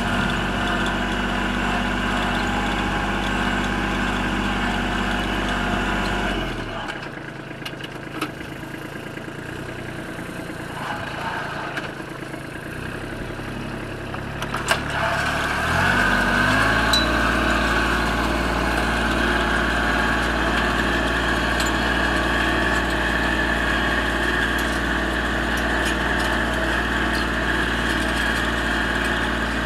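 Kubota compact tractor's diesel engine running steadily under load while pulling a cultivator. It throttles down to a quieter idle about six seconds in, then revs back up with a rising note around fifteen seconds in and runs on steadily.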